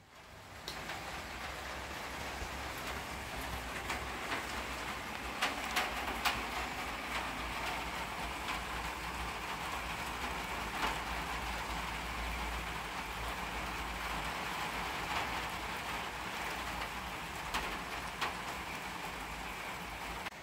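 Steady rain falling, an even hiss with scattered sharper drop ticks striking a hard surface.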